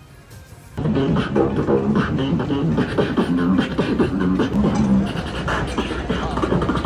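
Rhythmic vocal music with a beatbox-like beat, cutting in abruptly about a second in over faint background sound.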